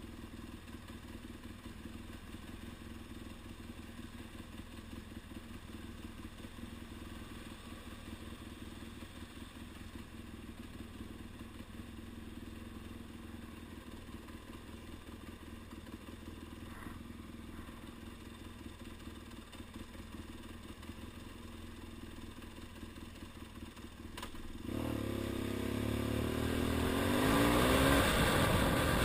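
BMW F800 parallel-twin motorcycle engine idling steadily while stopped, then revving and accelerating away about 25 seconds in, its note rising and growing louder as wind noise builds.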